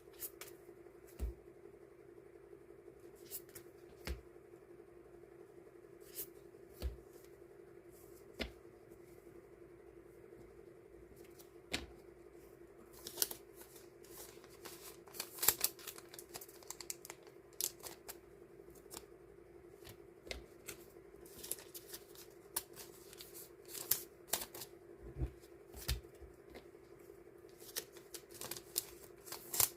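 Die-cut sticker sheets and their packaging being handled and sorted by hand: scattered light taps and clicks, then from about halfway through denser short rustling bursts, over a steady low hum.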